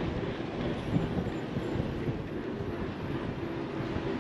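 Steady rumble of a moving bus, engine and road noise together, with a brief bump about a second in.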